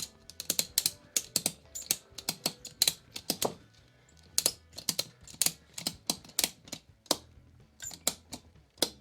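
Ratchet tie-down strap being cranked tight as a clamp on a freshly glued chair: quick runs of sharp ratchet clicks, broken by short pauses.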